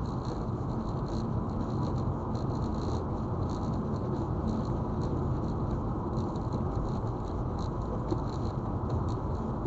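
Steady road and tyre noise from a car driving at speed, with faint light ticks scattered through it.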